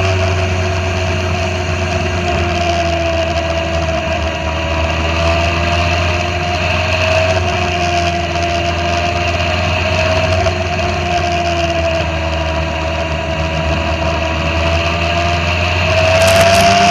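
Motorcycle engine running at a steady cruise, its pitch drifting gently up and down over a steady rush of wind and road noise. The engine note rises and gets louder near the end as the throttle opens.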